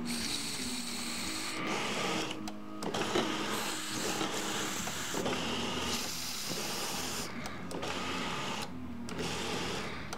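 Aerosol spray lubricant hissing through a thin extension straw in several long bursts with short breaks between them, worked into a motorcycle's electric-windscreen arms and screw-drive tubes to free a binding mechanism. A steady low mechanical whir runs underneath.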